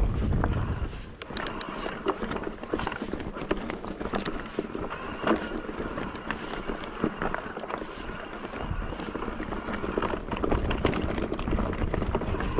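Cube e-mountain bike rolling over a rough, stony trail: tyres crunching on loose rock and the bike rattling, with many irregular clicks and knocks. Wind rumbles on the microphone for about the first second, then drops away.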